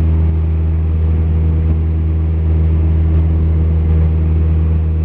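Cessna 172P's four-cylinder Lycoming engine and propeller droning steadily in flight, heard from inside the cabin.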